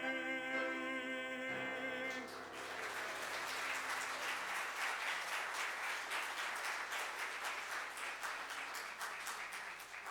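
A baritone singer holds the song's final note with vibrato over piano, ending about two seconds in, followed by a congregation applauding.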